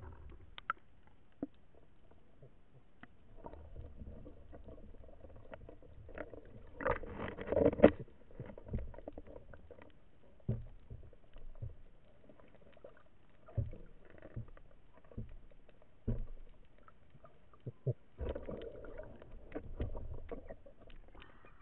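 Seawater sloshing and splashing around a camera held at the surface while a swimmer moves through the water, with scattered short knocks. The loudest splashing comes about seven seconds in, and another spell near the end.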